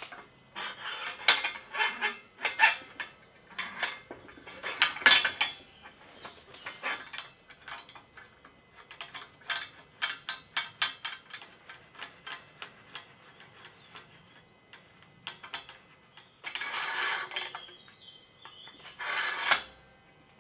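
Steel parts of a bead roller being handled and fitted together: a string of sharp metallic clinks and clicks, with two longer scrapes of metal sliding on metal near the end.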